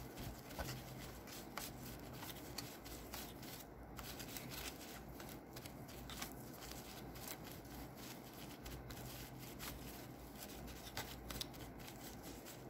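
A tissue wiping and rubbing around a laptop's fan bay: a faint, papery scratching with many small, irregular ticks.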